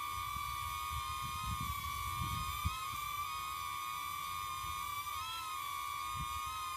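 Small quadcopter drone's propellers whining steadily while it hovers. The high-pitched hum wavers and splits into beating tones a few times as the rotors change speed, over a faint low rumble.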